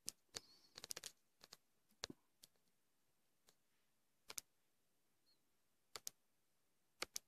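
Faint, sharp clicks and taps on a touchscreen, a few at a time with pauses of a second or more between them, as the screen is written on by hand.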